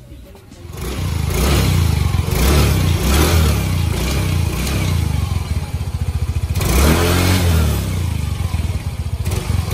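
Motorcycle exhaust through an aftermarket Organ 'chicken pipe' muffler with its silencer insert still fitted: the engine comes in about a second in and runs with repeated throttle blips, the strongest near the end. The speaker calls the silent setting a little noisier than the stock pipe.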